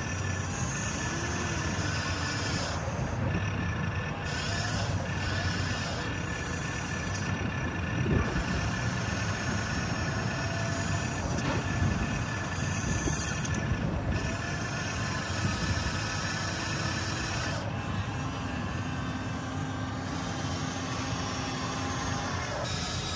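Radio-controlled construction models working: a steady mechanical rumble with short whines from their electric motors and gears.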